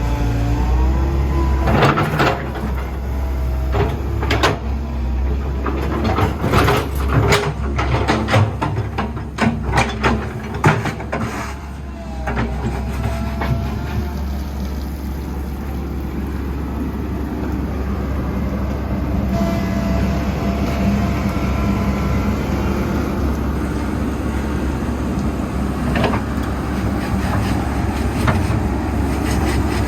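Komatsu PC138US-8 excavator's diesel engine running under hydraulic work, with a run of sharp knocks and rattles over the first twelve seconds or so, then a steadier run.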